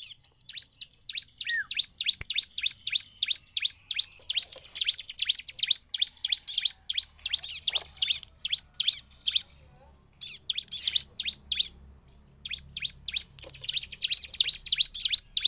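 Bar-winged prinia (ciblek) calling in fast runs of sharp, high chirps, several a second, broken by a couple of short pauses: the vigorous 'gacor' calling of an excited bird.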